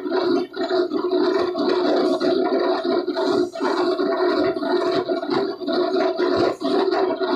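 Loud, steady running noise of workshop machinery, a constant hum under a rough, noisy drone that never stops.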